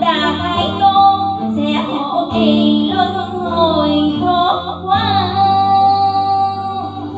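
Music: the closing bars of a slow Vietnamese Buddhist song. A gliding melody line plays over steady accompaniment and settles on one long held note about five seconds in.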